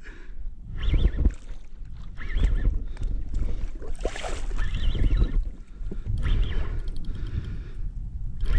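Wind rumbling on the microphone and water lapping against a kayak hull, with a few faint, short whines now and then.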